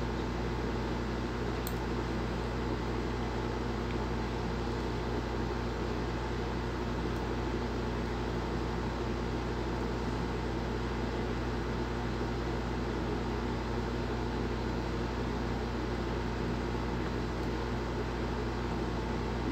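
Steady low electrical hum with a layer of hiss, unchanging throughout, with no distinct events.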